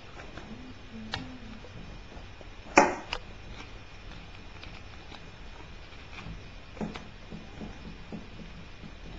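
Hands handling a paper-wrapped roll of euro coins on a table: scattered light clicks and taps, the sharpest about three seconds in, over a low steady hiss.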